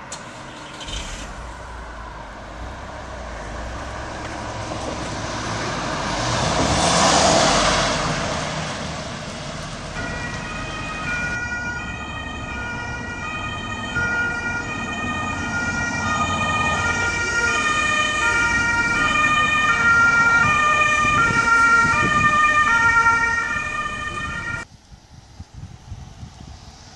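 An approaching ambulance, its engine and tyre noise swelling to a peak about seven seconds in as it passes. Later a German ambulance's two-tone siren (Martinshorn) sounds loudly, alternating between two pitches in even steps, then cuts off suddenly near the end.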